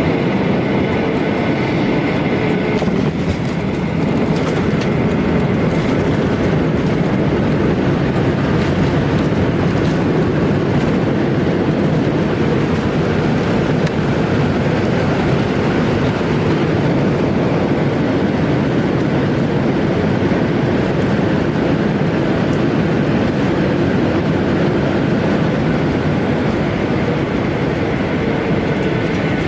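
Steady rumble of a Boeing 737-900ER heard from inside the cabin, with a faint high whine over it.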